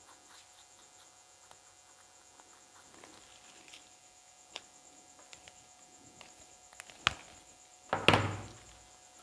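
Small objects handled on a tabletop: a plastic craft spoon and marker giving faint scattered clicks, a sharp click about seven seconds in, then a louder knock with a short ringing tail about a second later.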